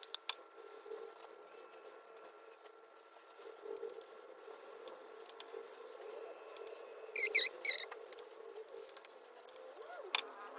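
Spatula scraping thick buttercream out of a plastic jug and spreading it across a cake top, with soft scrapes and light clicks. Two short high chirps sound a little past the middle.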